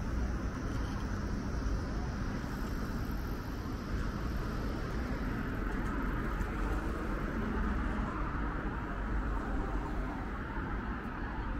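Steady city street traffic noise from cars on a multi-lane road, with a deep rumble underneath.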